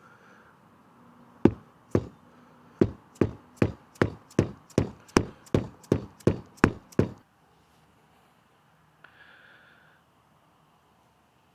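About fourteen sharp knocks in a steady rhythm, roughly two and a half a second, over about six seconds, then stopping: greased bushings being tapped into a motorcycle's adjustable rear brake arm.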